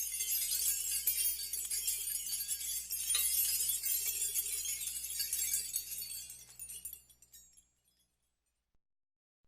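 Dense, high, glassy clinking and jingling that fades out about seven seconds in, followed by silence.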